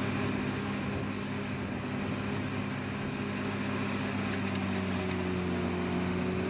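Large trailer-mounted wood chipper running steadily at working speed as a whole conifer tree is fed into its infeed; the engine drone holds an even pitch throughout.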